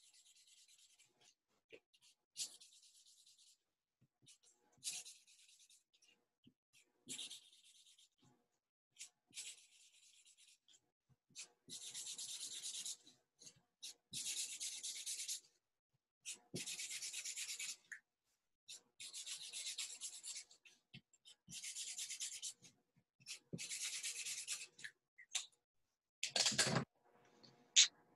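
Marker tip rubbing back and forth on paper while colouring in shapes: a string of scratchy strokes about a second long each, louder in the second half. A brief louder bump comes near the end.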